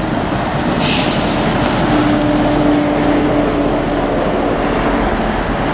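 Small narrow-gauge steam locomotive rolling slowly along the track, mixed with cars passing on the road beside it. A short hiss comes about a second in.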